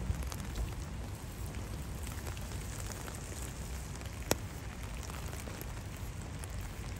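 Sleet falling steadily, a hiss with scattered close drops ticking and one sharper tick about four seconds in, over a low steady rumble.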